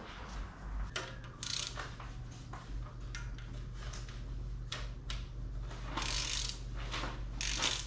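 Hand ratchet clicking in short runs and single clicks, running down the bolts of a freshly fitted rear-sump oil pan on an upturned Toyota V6 engine block. A steady low hum sits underneath.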